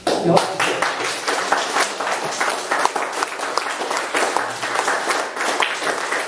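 Audience applauding: a dense run of many hand claps that breaks out all at once.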